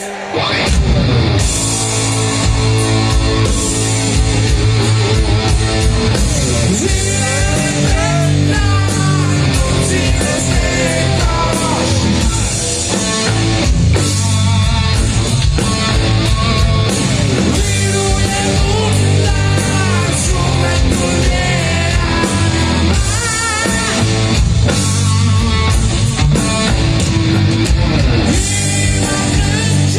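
Rock band playing live: the full band comes in loudly at the start, electric guitars, bass and drum kit, with a lead melody bending in pitch over them.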